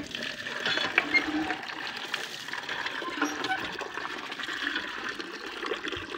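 Water running steadily, a continuous rushing splash with a few light clicks over it.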